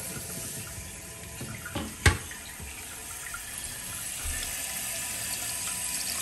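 Water running into a toilet tank through a newly replaced fill valve after the supply is turned back on: a steady hiss of the tank refilling. One sharp click about two seconds in.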